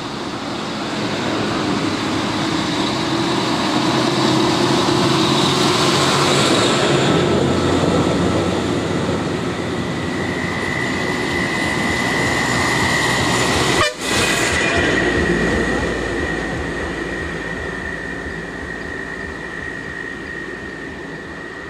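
Red Ashok Leyland diesel bus passing close by, its engine and tyre noise swelling and then fading away. About halfway through, a steady high whine comes in and slowly fades.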